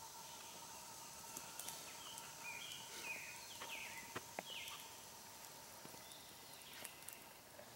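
Faint woodland ambience under a steady high hum. A few short chirping bird calls come through the middle, and a couple of light clicks land around the same time, like footsteps on the dirt.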